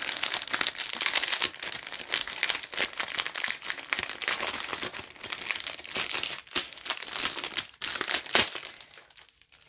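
Clear plastic packaging holding diamond painting drills, crinkling and rustling as it is handled. The crinkling dies away near the end.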